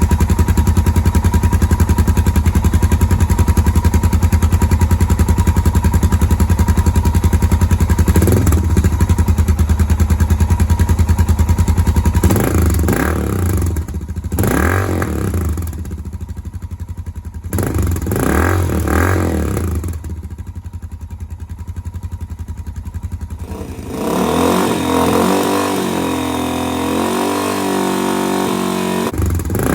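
Suzuki DR650 single-cylinder four-stroke engine breathing through a custom exhaust with a dB-killer insert, idling with an even loud thump, then revved up and let fall back several times from about twelve seconds in, with a longer run of rising and falling revs near the end.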